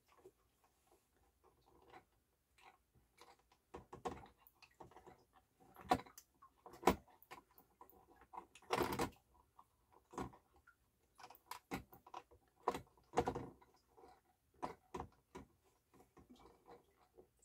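Irregular small clicks and knocks of metal and plastic parts being handled while a turntable's cueing lift mechanism is refitted from underneath the chassis, the louder knocks clustered in the middle.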